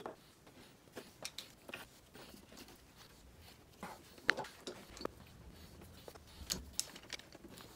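Faint scattered clicks and knocks of bar clamps and wooden blocks being handled and tightened in a clamping jig, with one sharper click about four seconds in.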